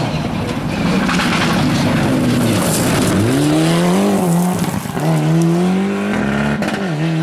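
Rally car on a gravel stage passing close, its tyres spraying gravel and stones as it slides by. The engine then revs up hard as it pulls away, the pitch climbing and dropping back twice at gear changes.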